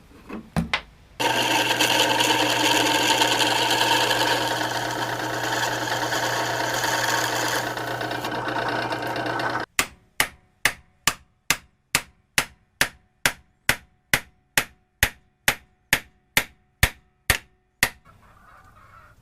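A power drill runs steadily for about eight seconds. Then about twenty evenly spaced hammer blows, a little over two a second, drive a bushing into a worn push-mower wheel.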